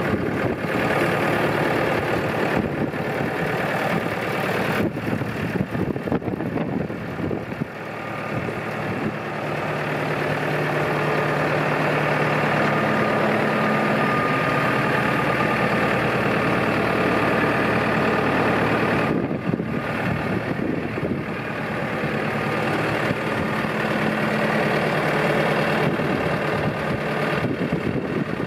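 Diesel engine of a 2012 Massey Ferguson 5440 Dyna-4 tractor idling steadily.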